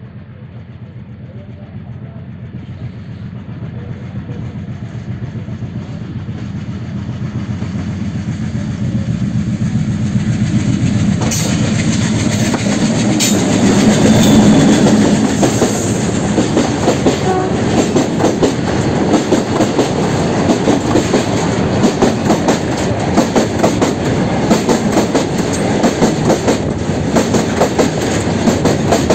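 A loaded freight train behind a diesel locomotive approaching and passing close by: the rumble grows steadily louder to a peak as the locomotive goes past about halfway through. Then the covered wagons roll by with a rhythmic clickety-clack of wheels over the rail joints.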